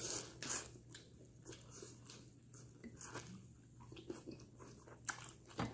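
Mouth sounds of eating hot Cheetos–crusted frog legs: crunchy bites and chewing, heard as irregular short crackles.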